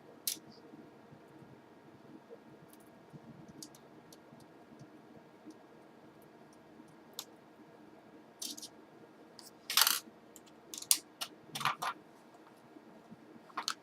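Scattered small plastic and metal clicks from a laptop being handled during screen-replacement reassembly. A few faint ticks come early, then a busier run of clicks and short scrapes about two-thirds of the way in, the loudest a brief scrape.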